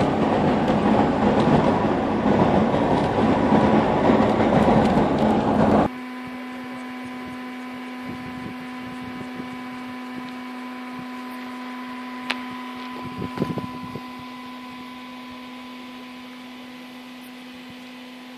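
Car driving over a paving-block road, heard inside the cabin as a loud, steady rumble of tyres and engine. About six seconds in it cuts off abruptly to a much quieter steady hum with a few faint clicks and knocks.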